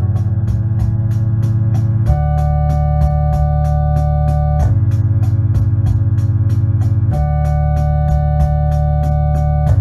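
Electone electronic organ playing sustained chords that change about every two and a half seconds, over a steady ticking rhythm-machine beat of about four ticks a second.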